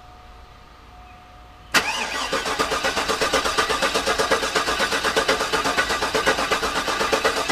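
Starter motor cranking a rebuilt GM LS V8: a sharp clack as the starter engages about two seconds in, then an even, fast chugging as the engine turns over without firing. The cranking is meant to build oil pressure, but the oil pump has not been primed.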